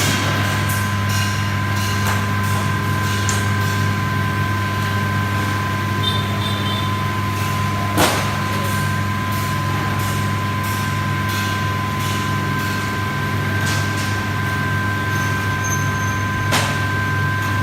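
An electric ice-cutting machine running steadily, a constant low motor hum with a high whine over it, and a sharp knock twice.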